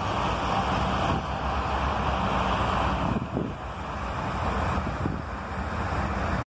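Road traffic noise with wind rumbling on the microphone. The sound changes abruptly about a second in and again about three seconds in, as if cut between separate recordings.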